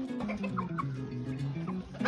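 Chickens clucking a few short times over background music.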